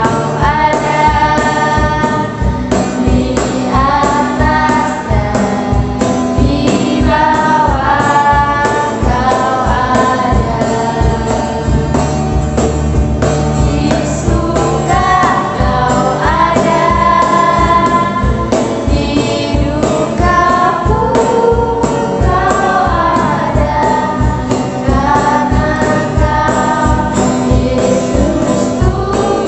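A small group of young voices singing a children's worship song in unison, accompanied by an acoustic guitar strummed in a steady, even rhythm.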